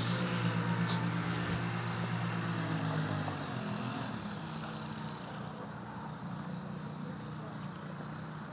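An engine passing by, its low hum loudest over the first three seconds and then fading away. There are two sharp clicks near the start.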